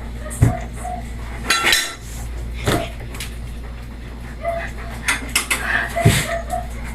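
Irregular clatter of hard objects being handled: a series of sharp knocks and clinks, with a few short squeaks in between.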